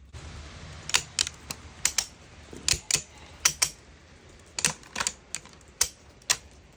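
Ratchet strap being cranked tight as a clamp: a run of sharp metallic clicks from the ratchet mechanism, in small uneven groups.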